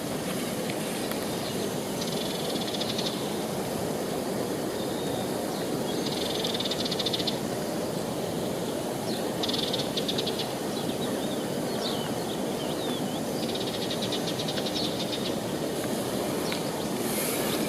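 A river running steadily. Above the water, a fast, high trill repeats four times, about every four seconds, with a few faint chirps between.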